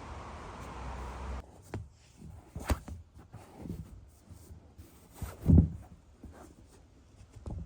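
A steady hiss that cuts off suddenly about a second and a half in, followed by scattered clicks and knocks of things being handled. The loudest is a low thump about five and a half seconds in.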